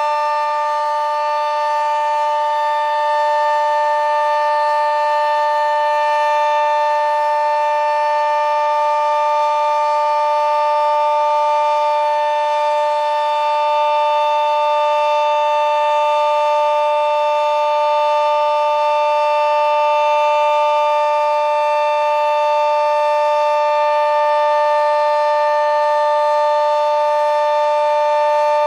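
Sentry 40V2T omnidirectional civil-defense siren sounding a full alert: a loud, steady two-note chord that holds its pitch without rising or falling.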